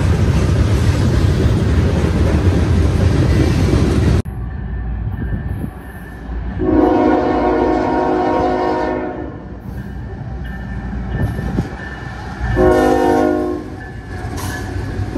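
Loud rumble of a freight train passing close, cut off abruptly about four seconds in. Then a locomotive's multi-note air horn blows one long blast and, a few seconds later, a short one, with another blast starting right at the end.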